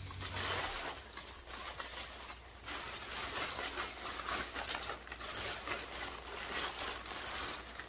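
A plastic poly mailer bag crinkling and rustling as it is handled and opened, with a brief lull about two and a half seconds in.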